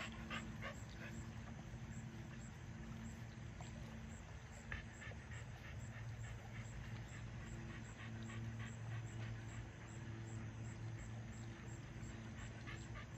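A dog in a kayak making faint whimpering sounds, over a low steady hum that comes and goes.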